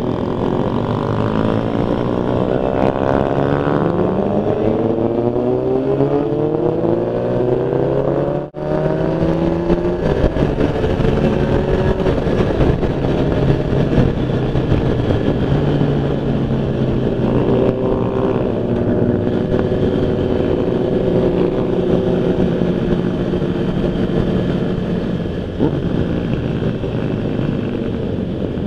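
A 2003 Honda CBR600 F4i's inline-four engine running under way, with wind and road noise. The revs climb steadily over the first several seconds, then hold fairly steady. The sound drops out briefly about eight seconds in.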